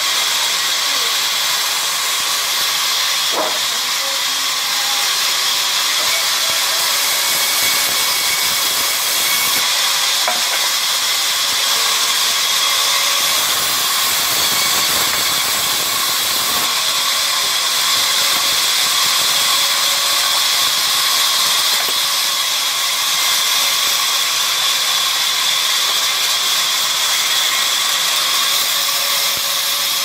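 Large vertical sawmill band saw running and ripping planks: a steady, high hiss of the blade through the wood.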